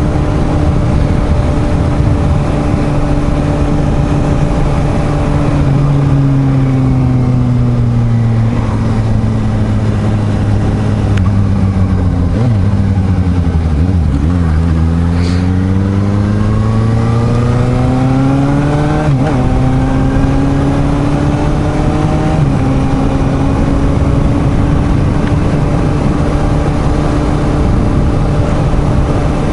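Suzuki GSR750 inline-four motorcycle engine under way, heard with heavy wind rush. The engine holds a steady pitch, then its revs fall for several seconds as the bike slows. It pulls back up through the revs with two upshifts, about two-thirds of the way through, and settles into a steady cruise.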